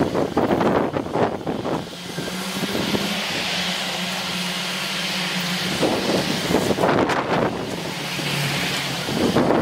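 Heavy demolition excavator's diesel engine running steadily, with bursts of crashing and scraping rubble in the first two seconds, again about six to seven seconds in, and near the end.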